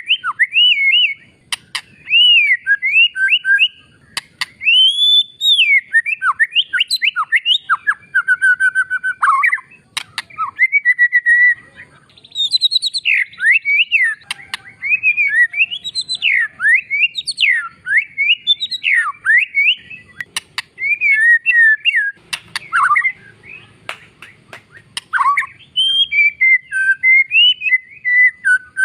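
White-rumped shama singing loudly: a long run of varied whistled phrases of quick rising and falling notes, with short pauses and scattered sharp clicks.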